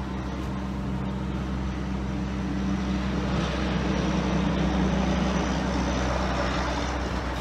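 A heavy truck drives past on the road. Its engine hum and tyre noise swell to a peak a few seconds in and then ease off.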